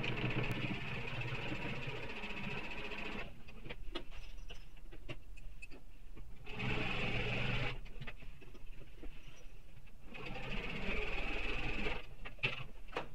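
Electric sewing machine stitching a long basting seam through layered fabric, running in three spells of a few seconds each with short pauses between, and a few light clicks while the fabric is handled.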